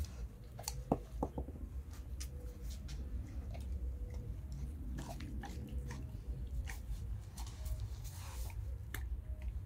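A dog chewing raw carrot: an irregular run of sharp crunches as it bites down, with two louder cracks about a second in.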